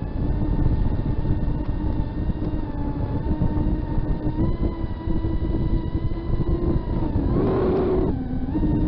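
FPV quadcopter's brushless motors and propellers whining, the pitch stepping up and down with throttle, over a heavy low rushing noise. About seven seconds in the pitch rises in a short burst, then drops away.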